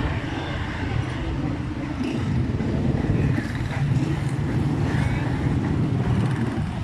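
Steady low rumbling background noise, with faint voices now and then.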